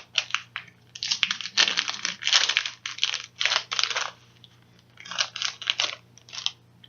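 Packaging crinkling and rustling in a quick run of short crackles as trading cards are handled and unwrapped, pausing briefly and starting again near the end.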